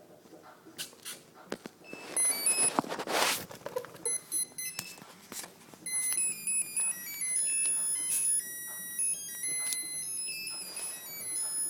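Short, high electronic beeping tones that jump between several pitches, sounding from about six seconds in. Before that, from about two to four seconds in, there is a louder rushing noise.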